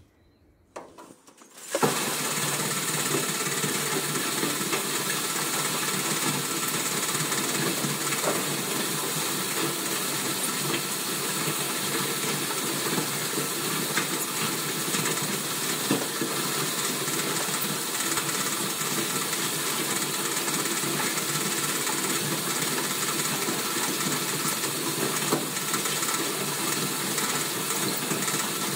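Wood-chip conveyor system switching on about two seconds in, then running steadily: a continuous hissing, rushing noise of wood chips being conveyed and pouring into the storage bunker.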